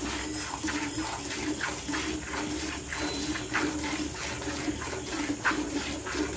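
Cow being milked by hand into a metal pail: streams of milk squirting into the milk already in the pail, about two squirts a second as the hands alternate, over a low steady hum.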